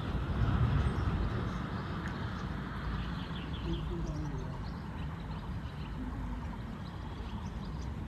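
Forest ambience: faint, short bird chirps over a steady low rumble, with muffled voices.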